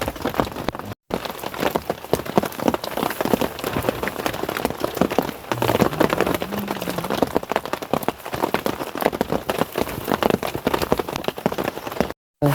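Rain falling steadily, a dense spatter of many drops hitting a surface. The sound cuts out completely for a moment about a second in and again near the end.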